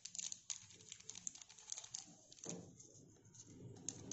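Faint crinkling of a small Eno fruit salt sachet, with many light ticks, as it is shaken and tipped out over a bowl of cake batter.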